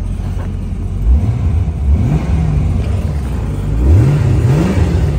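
1995 Chevrolet Corvette's LT1 5.7-litre V8 idling, then revved twice, once about a second in and again near four seconds, each time rising in pitch and dropping back to idle.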